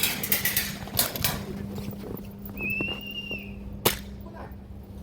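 Airsoft guns firing: a rapid burst of sharp shots at the start, another short burst about a second in, and a single sharp shot near the end.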